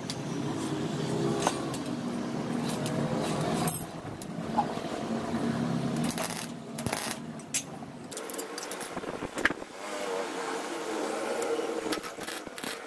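Steel pipe and flanges clinking and ticking against each other and the steel plate as they are set in place for welding, over an engine hum in the background that drops away about eight seconds in.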